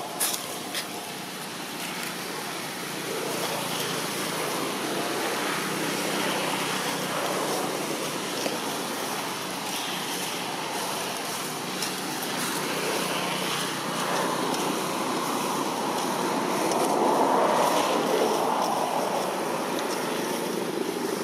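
Steady rushing outdoor background noise, swelling gently and loudest about three-quarters of the way through.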